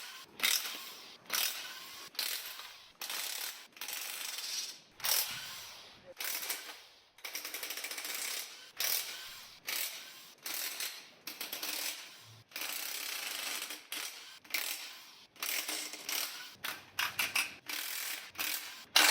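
Ratchet wrench clicking in short repeated strokes, roughly one a second, loosening the 13 mm main bearing cap bolts on an engine block.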